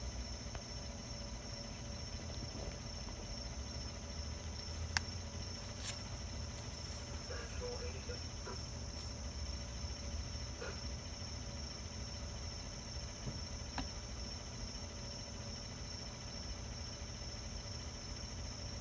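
A steady, even high-pitched chorus of insects such as crickets, over a low steady rumble from the pickup truck idling, with a few faint scattered clicks.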